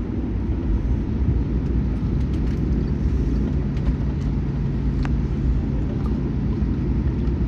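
Steady low cabin rumble of a Boeing 787-9 rolling on the ground after landing, with a low steady hum joining about two seconds in.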